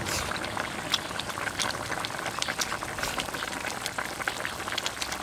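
A wok of spicy fish and pork-intestine stew bubbling on the stove, with a steady stream of small irregular pops.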